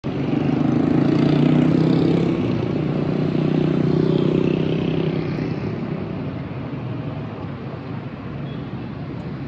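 Street traffic: a motor vehicle's engine running close by with a steady pitch, loudest in the first couple of seconds and fading out after about five seconds into the general hum of passing cars.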